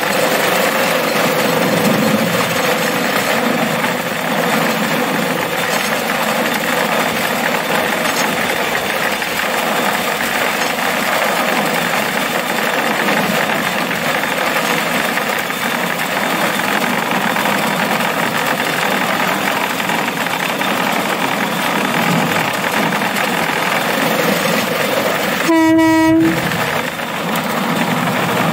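Motorized rail cart running steadily along the track, its engine and wheels on the rails making a constant noise. Near the end a single short horn blast sounds, under a second long.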